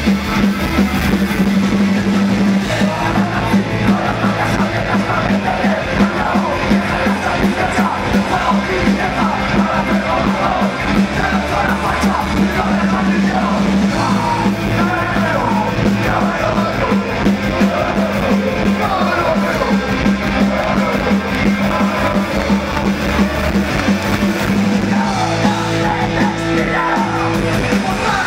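Punk rock band playing live: electric guitars, bass guitar and drums with shouted vocals.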